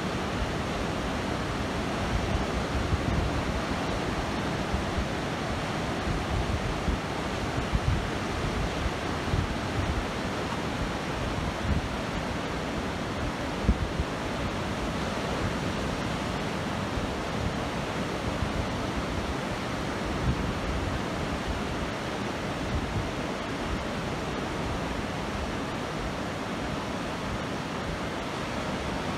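Ocean surf breaking and washing up a sandy beach, a steady rushing hiss. Wind buffets the microphone in low, gusty rumbles with a few brief louder thumps.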